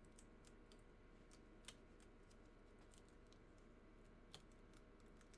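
Near silence with faint, scattered clicks and ticks from hands working the seal and lid of a cardboard card box, two a little louder than the rest.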